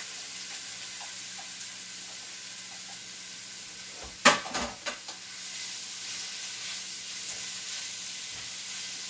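Sliced peppers sizzling steadily in hot olive oil in a stainless steel wok, just added to the preheated pan. About four seconds in there is a sharp clatter followed by a few lighter knocks.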